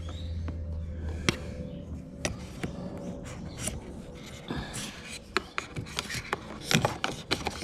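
Plastic door catch plate cover being handled and fitted by hand: scattered sharp clicks and taps over light rubbing and scraping, the clicks coming more often in the last few seconds.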